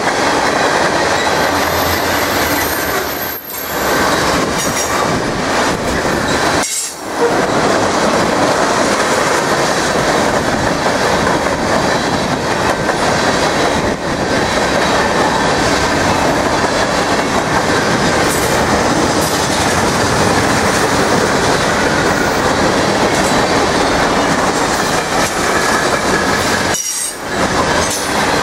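Freight cars of a mixed manifest train (tank cars, covered hoppers, gondolas) rolling past close by: a steady loud rumble and clatter of steel wheels on the rails. The noise dips briefly three times.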